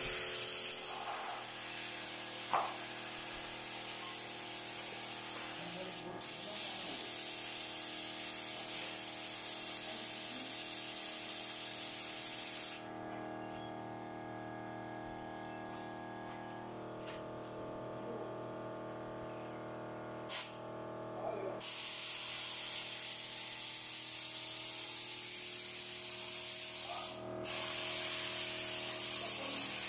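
Compressed-air paint spray gun hissing as paint is sprayed through a stencil onto a wall, in long spurts as the trigger is pulled and released. The spray stops briefly about six seconds in, pauses for several seconds from about a third of the way through, when only a steady hum is left, then resumes with another short break near the end.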